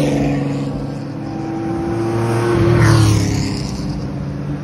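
Race car engines driving past one after another, each swelling and fading as it goes by. The loudest pass comes about three seconds in, with a falling whine.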